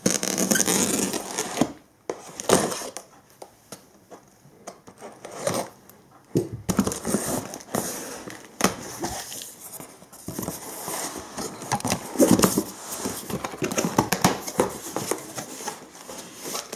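Packing tape being picked at and ripped off a cardboard box, then the cardboard flaps pulled open and the contents handled: bursts of tearing and rustling with scattered scrapes and knocks.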